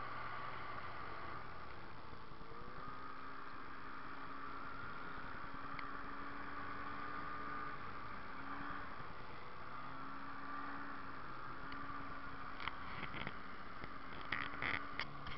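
Snowmobile engine running steadily at speed with the rush of the track and skis through snow, its pitch wandering slightly. A few sharp knocks or clicks near the end.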